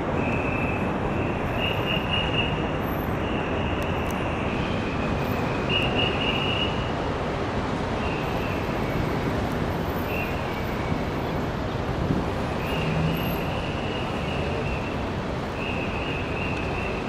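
Steady road traffic noise, with a thin high whine that comes and goes every second or two.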